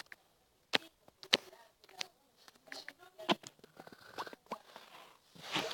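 Irregular light taps and clicks, a few of them sharper, from a phone being handled and typed on, with faint breathy murmuring between them.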